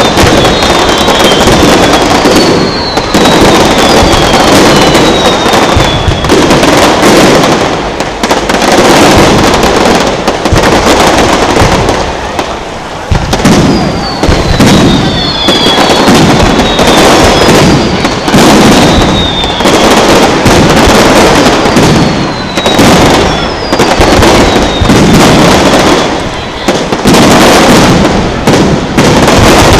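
Fireworks display: a dense, continuous barrage of aerial shells bursting and crackling, very loud, with repeated high whistles falling in pitch every few seconds.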